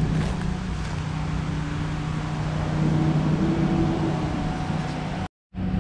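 Steady low drone of a vehicle engine running on the street, with a fainter higher tone that rises and falls around the middle. The sound drops out completely for a moment near the end.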